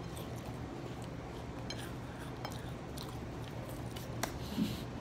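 Faint chewing of a salt cracker topped with honeycomb and cream cheese, with a few small sharp clicks and crunches over a steady low room hum. The sharpest click comes about four seconds in. A brief low hum-like vocal sound follows near the end.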